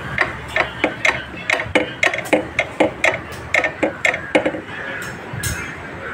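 Wrench working on the subframe bolts, clicking in a quick run of sharp metallic strokes, about three to four a second, that stops a little past four seconds in.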